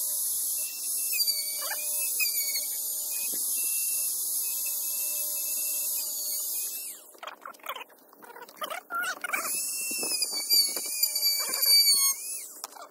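High-speed rotary cutting tool whining as it cuts an opening for air to pass through, its pitch dipping briefly each time it bites. It stops for about a second and a half partway through, with scraping noises, then starts again.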